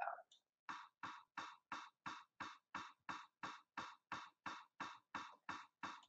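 Metronome ticking at 175 beats per minute: a quick, even run of short clicks, about three a second, starting a little under a second in.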